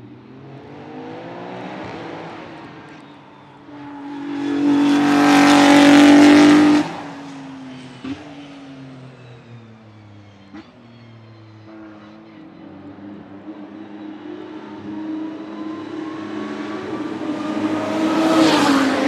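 Maserati MCXtrema's 3.0-litre twin-turbo V6 driving past at speed, loudest about five to seven seconds in and then cutting off abruptly. A lower engine note follows and grows steadily louder and higher as the car comes closer near the end.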